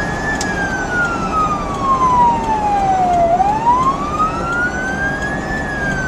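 Emergency siren in wail mode, sweeping slowly down and back up, with one full cycle in a little over five seconds, over steady road and engine noise.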